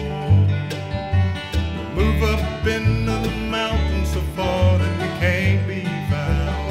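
Bluegrass band playing an instrumental break: picked acoustic guitar and mandolin over a bass line that steps to a new note about every half second.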